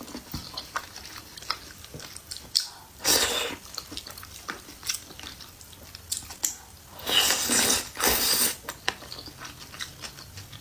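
A person chewing and biting food, with many small wet mouth clicks and a few longer, louder bursts about three seconds in and again between about seven and eight and a half seconds in.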